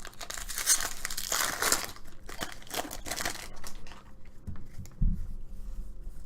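Foil wrapper of a baseball card pack being torn open and crinkled, densest in the first two seconds, with a couple of soft knocks near the end.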